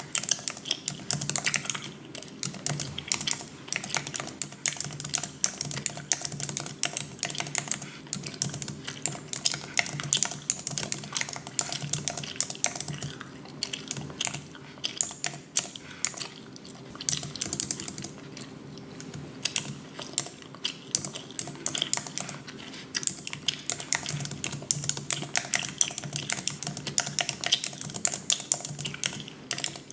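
Rapid, irregular clicking and tapping, much like typing on a keyboard, going on almost without a break apart from a few short pauses, over a steady low hum.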